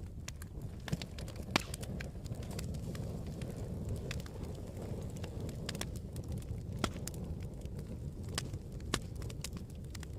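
Campfire burning: a steady low rumble of flames with irregular sharp pops and crackles, a few louder pops about a second and a half in, near seven seconds and near nine seconds.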